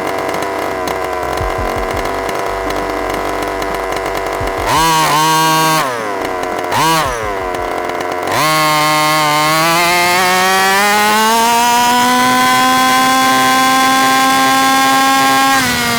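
45cc two-stroke engine of an HPI Baja 5B petrol RC car, heard from a microphone mounted on the car. It runs low and steady, is blipped twice about five and seven seconds in, then opens up about eight seconds in, its pitch climbing over a few seconds and holding high under throttle before backing off just before the end.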